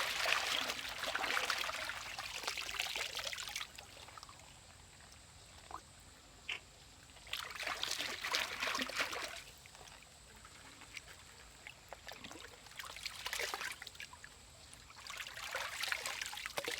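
Water splashing and trickling as a goat stomach is rinsed out in water, in four separate bursts with quieter pauses between them.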